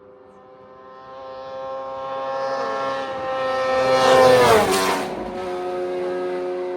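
A racing motorcycle approaching at full speed and passing close by, its engine note holding one steady high pitch as it builds, then dropping sharply in pitch as it goes past about four and a half seconds in, and fading away.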